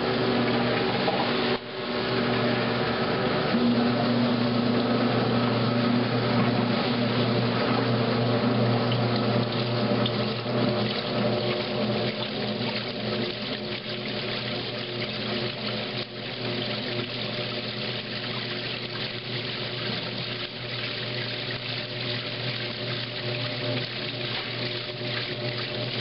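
1963 Maytag A700 top-loading washer switching from agitation to spin: a brief break about a second and a half in, then a steady motor hum as the basket spins and the water rushes out through the drain pump. The sound eases a little after about ten seconds.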